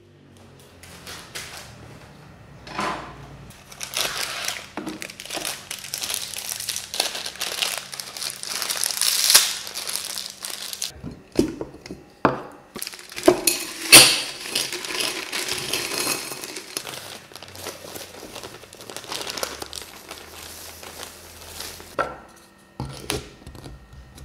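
Plastic food packets crinkling and rustling as they are handled and torn open, in long stretches with a short pause about eleven seconds in. A few sharp knocks come through the rustling, the loudest about fourteen seconds in.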